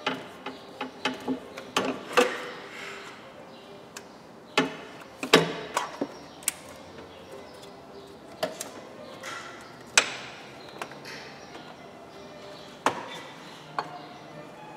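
Irregular clicks and knocks of hoses, connectors and engine parts being handled and pushed into place in a diesel engine bay during reassembly, the sharpest about two, five and ten seconds in. Faint music sits underneath.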